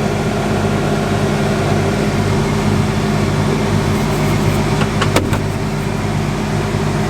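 Farm vehicle's engine running steadily, heard from inside the cab, with a few light clicks about five seconds in.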